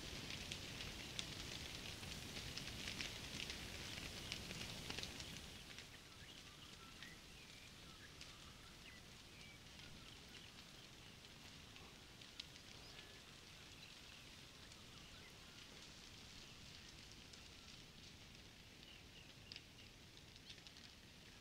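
Savannah bushfire crackling with dense snapping for about the first five seconds, then the sound drops to a quieter outdoor ambience with sparse crackles and a few faint, short high chirps.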